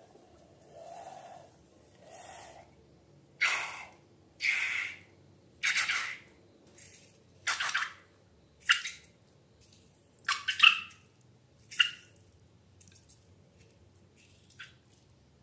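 Wet slime being squeezed and poured, heard as a run of short squishing splats about once a second. They grow louder toward the middle and thin out to faint ticks near the end.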